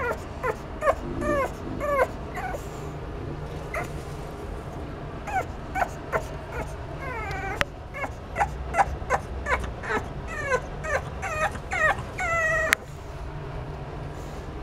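Boston terrier puppy whimpering and yipping: a run of short high cries that fall in pitch, in two spells, the last a longer held cry that cuts off suddenly.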